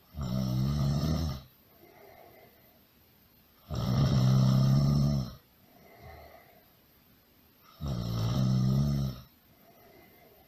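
A person snoring loudly in a steady rhythm: three long snores about four seconds apart, each lasting about a second and a half, with a soft breath between them.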